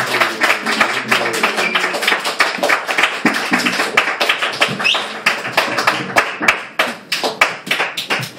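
Small audience clapping at the end of a song, many irregular hand claps that thin out and fade near the end. In the first second or so the band's last chord is still ringing under the clapping.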